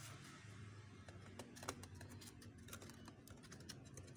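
Faint, irregular light clicks and scratches of pointed metal tweezers picking along the edge of a phone's frame, with one sharper tick about a second and a half in.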